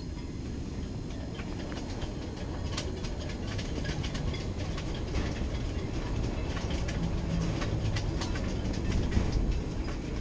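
Strong wind, about 40 mph, buffeting an ice-fishing house: a steady low rumble with the walls shaking and rattling in quick clicks, building slightly towards the end.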